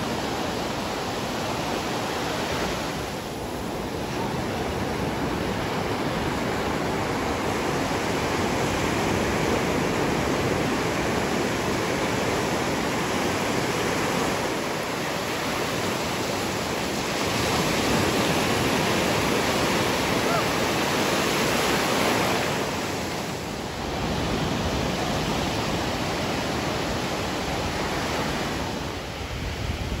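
Ocean surf breaking and washing up the beach: a steady rushing noise that swells and eases a little.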